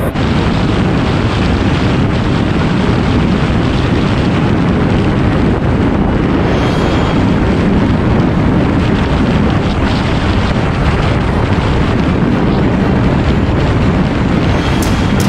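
Steady rush of wind on the microphone of a camera on a Honda CBR125R ridden at highway speed, with the bike's engine and road noise mixed in underneath.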